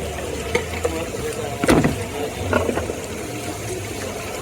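Street background noise: a steady low hum with a few short knocks and clinks, the loudest a sharp clatter nearly two seconds in.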